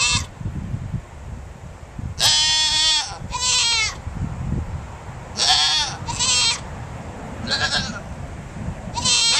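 Two goats, a kid and an adult, bleating repeatedly: about five loud bleats, several coming in quick pairs, each with a wavering pitch, and another beginning near the end.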